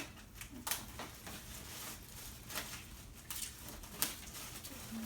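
Light rustling of gift wrapping and packaging being handled, with scattered small clicks and taps.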